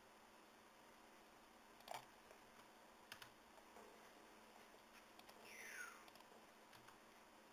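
Near silence: faint room hiss with a few soft computer key and mouse clicks, the clearest about two and three seconds in. A faint falling whistle comes about five and a half seconds in.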